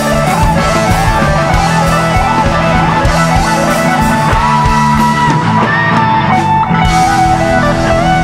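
Live rock jam band playing an instrumental passage: an electric guitar lead holds long, sustained notes that bend and slide between pitches, over steady drums.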